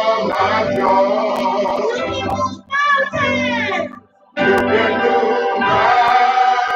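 Worship music: singing with instrumental backing, with a brief break about four seconds in.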